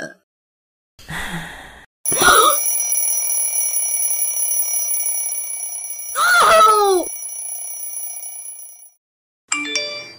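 A ringing sound holding several steady high tones for about seven seconds, fading slowly, with a falling, voice-like whoop about six seconds in and a short burst of tones near the end.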